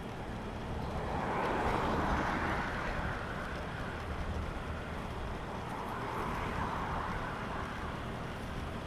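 Road traffic going by: vehicles' tyre and engine noise swells and fades twice, one pass about a second in and another around six seconds in, over a steady low rumble of traffic.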